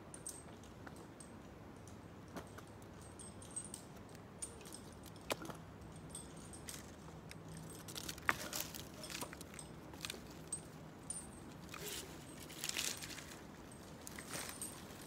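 Scattered light snaps, clicks and rustles of dry twigs and branches, with a denser patch of crackling about halfway through and another near the end.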